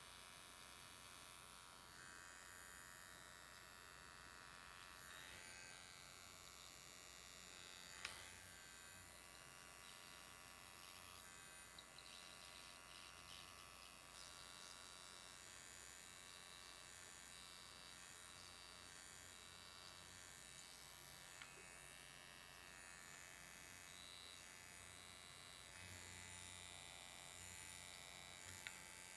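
Faint steady buzz of an electric skin spatula's metal blade being worked over the skin of the chin and upper lip, over a low electrical hum.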